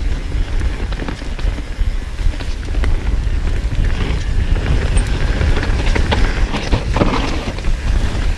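Action-camera audio of a mountain bike descending a rough trail at speed: wind buffeting the microphone and tyres rumbling over dirt and rock, with frequent rattles and knocks from the bike.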